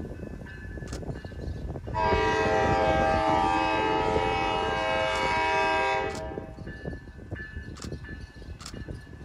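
Horn of an approaching train sounding one long steady blast of about four seconds, starting about two seconds in, over a low rumble.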